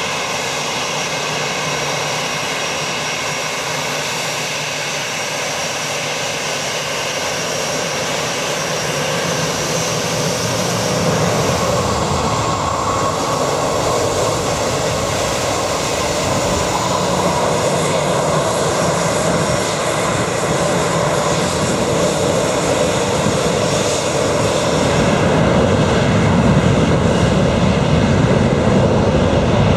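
Twin-engine jet airliner's engines running close by, with a steady high whine. The whine gives way to a deeper rumble that grows louder near the end as the engines power up for the takeoff roll.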